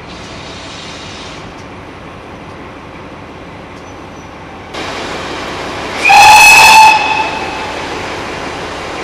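A steam hiss starts suddenly about five seconds in, then a single loud whistle blast of about a second from GWR 4200-class 2-8-0 tank engine 4270, with the hiss going on after it as the locomotive moves off.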